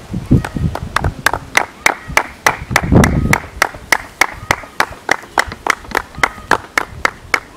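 A few people clapping in a steady rhythm, about three claps a second, with a loud voice calling out about three seconds in.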